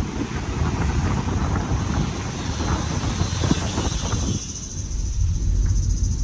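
Wind rushing over a microphone held out of a moving car's window, mixed with road noise from the car. About four seconds in it gives way to the low rumble of the car heard from inside the cabin.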